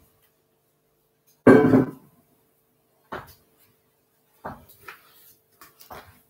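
Spatula scraping and knocking against a metal mixing bowl as egg whites are folded into thick cake batter: a handful of short knocks, with one louder thump about a second and a half in.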